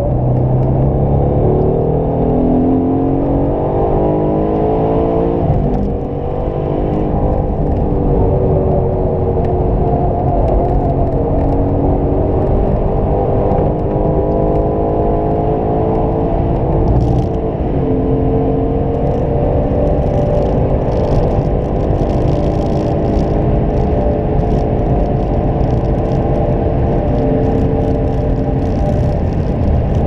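2018 Aston Martin Vantage's twin-turbo V8 under hard acceleration, heard from inside the cabin. The engine note climbs steadily in pitch through each gear, dropping at upshifts about six seconds in and again near seventeen seconds.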